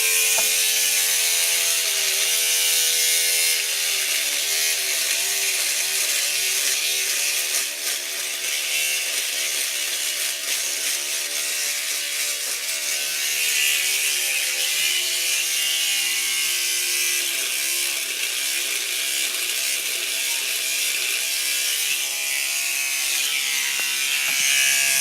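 Electric razor buzzing while it shaves off a moustache. Its pitch keeps dipping and recovering as the cutters bog down in the hair.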